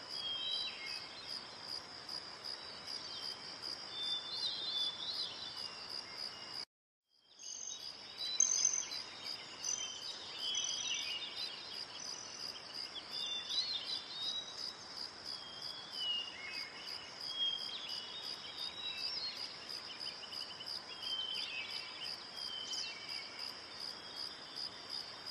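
A steady, high-pitched, pulsing insect trill with bird chirps scattered through it. The sound cuts out completely for about half a second around seven seconds in.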